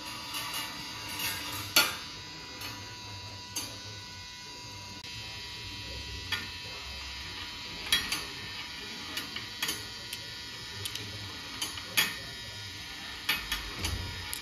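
Glass marbles running on a steel-wire marble run, with irregular sharp clicks and clacks as they drop onto the rails and the wooden lever and knock against one another, the loudest about two seconds in. A faint steady hum underneath.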